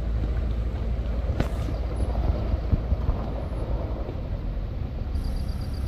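Engines running with a steady low rumble: a car labouring up a steep loose-dirt slope, with diesel earthmoving machinery working close by. One sharp click about a second and a half in.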